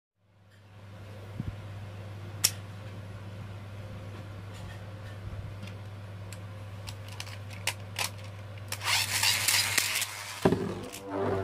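Steady low hum with a few light handling clicks. Near the end comes a loud rasping whirr from the spinning-top launcher, then the Infinity Nado top drops into the plastic arena with a sharp clack and starts to spin with a droning whirr.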